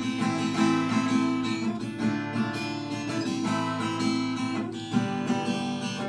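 Acoustic guitar strummed in a steady rhythm, an instrumental passage with no singing.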